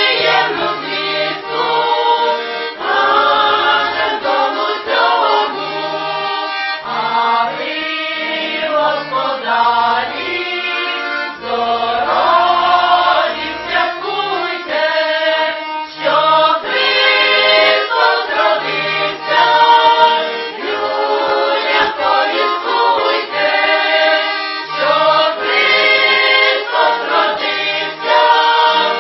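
A small women's choir singing a Ukrainian Christmas carol (koliadka) in several voices, with accordion accompaniment, its bass notes sounding on and off beneath the singing.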